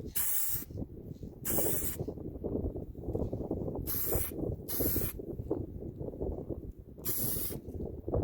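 Paint being sprayed onto a plastic door handle bezel in five short hissing bursts, each about half a second long, over a low steady rumble.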